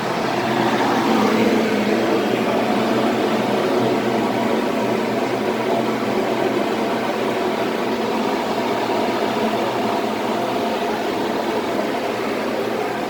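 Steady machine running noise with a constant low hum, even and unchanging, with no revving.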